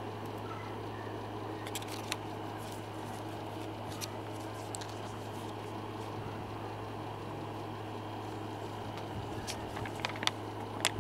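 A steady low hum over a hiss of background noise, with a few faint clicks from hands handling small craft pieces, more of them near the end.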